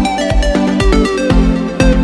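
Electronic background music with a steady kick drum about twice a second and a melody over it.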